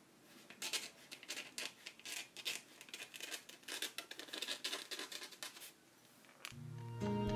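Pen or pencil writing on paper: a run of short, irregular scratching strokes as cursive words are written out. Near the end music with low held notes comes in and grows louder.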